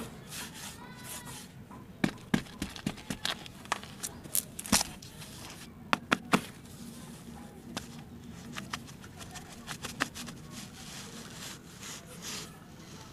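Hands scooping and pressing crumbly sandy clay into a plastic tub mould: a gritty rustle under a run of sharp taps and pats, the loudest coming a few seconds in.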